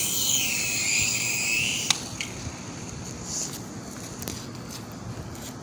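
Small toy remote-control helicopter's electric motors whining high, the pitch wavering and dipping, then fading out about two seconds in with a sharp click; faint hiss after.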